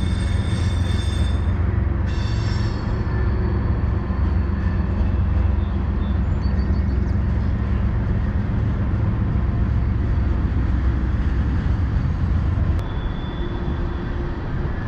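Steady low rumbling noise that eases slightly about thirteen seconds in.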